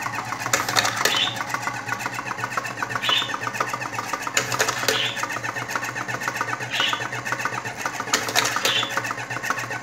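Electric hopper-fed automatic cigarette tube-filling machine running, its motor whirring with a fast mechanical ticking and a sharper stroke about every two seconds as each filter tube is filled with tobacco.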